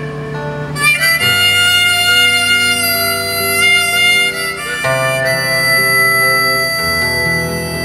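Harmonica played from a neck rack, holding long notes and chords, over strummed electric guitar chords that change a few times.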